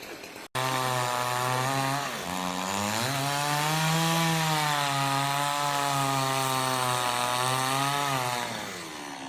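Chainsaw running at high revs, starting abruptly about half a second in; its pitch dips briefly twice, holds steady, then drops near the end.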